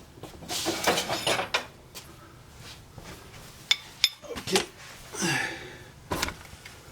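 Hand tools and loose metal parts clinking and rattling as they are handled. There is a rattle in the first second or so, a few sharp clinks around the middle, then a scrape and a knock near the end.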